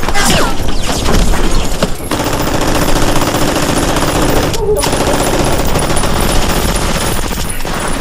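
Rapid machine-gun fire, a loud continuous fusillade of shots, with a brief break about two seconds in.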